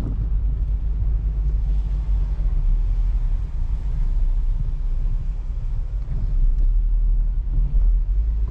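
Steady low road and engine rumble inside the cabin of a Renault Fluence 2.0 being driven with the windows up. No plastic rattle from the wheel area can be picked out: the suspension noise being tested for does not show.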